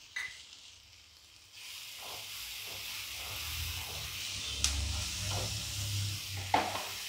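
Onion-tomato masala sizzling in a granite-coated pan while a wooden spatula stirs and scrapes it, the sizzle starting about a second and a half in. Two sharper knocks of the spatula against the pan come in the second half.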